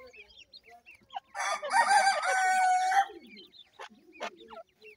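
A rooster crows once, a pitched call of under two seconds that ends on a held note, starting about a second in. Around it, grey francolin chicks keep up soft, short peeping chirps, and two sharp clicks come near the end.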